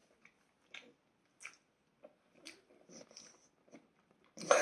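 A person chewing crunchy toasted bread, a run of small crunches about every half second, with a short louder vocal sound near the end.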